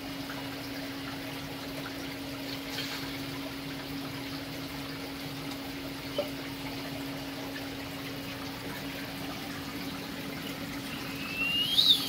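Saltwater aquarium water circulation: a steady rush of splashing, trickling water with a steady hum under it. Near the end a brief high squeak rises and falls.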